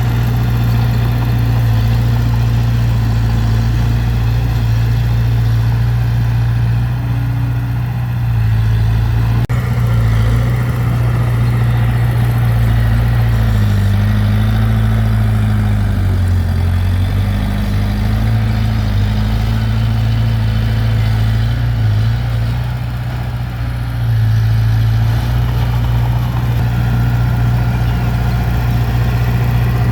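Heavy diesel engine of earthmoving equipment running steadily at a low, even note. Partway through, its pitch sags and recovers a few times, as under changing load.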